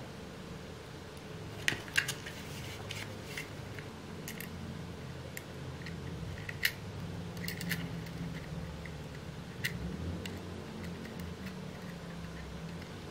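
Small 3D-printed plastic parts clicking and tapping as they are handled and fitted together by hand: about a dozen sharp, scattered clicks, loudest about two seconds in and again past the middle, over a steady low background hum.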